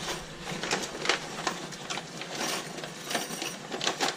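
Irregular small clicks and rustles of a metal fire clip being handled and wrapped around a cable.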